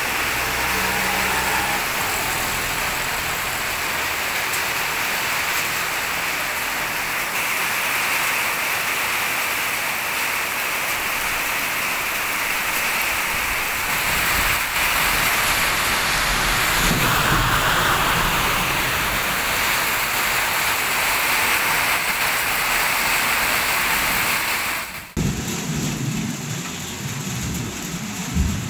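Heavy rain pouring steadily onto streets and pavement. A vehicle passes through the downpour a little past halfway. About 25 seconds in the sound cuts abruptly to lighter rain.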